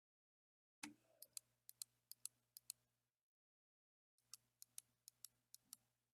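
Razer Basilisk V3 gaming mouse clicking: two runs of quick, sharp clicks, each about two seconds long, with a pause of about a second between them.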